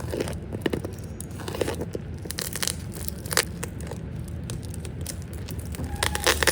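Irregular clicks, scrapes and crinkling of small objects being handled close up, over a steady low hum.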